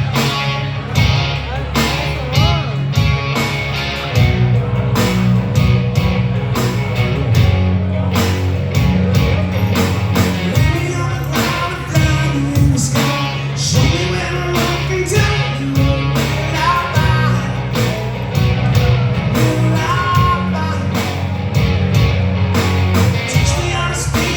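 Live rock band playing a song with electric guitar, bass and drums, and a singer's voice over the top.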